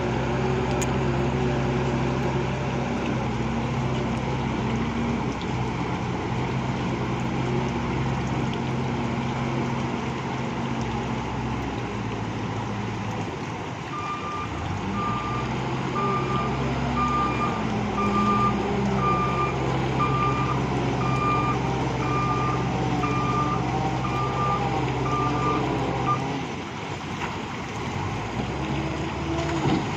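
Bull backhoe loader's diesel engine running, with its reversing alarm beeping about once a second for some twelve seconds in the middle.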